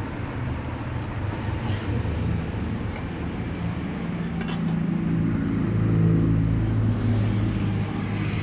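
Vehicle engine noise from the road: a low, steady engine hum that grows louder about halfway through, as a vehicle idles or passes close by. A faint clink is heard shortly before the engine swells.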